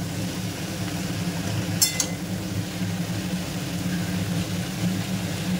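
A spatula stirring vegetables and chopped pumpkin greens in a frying pan, with a short clink against the pan about two seconds in, over a steady low kitchen hum.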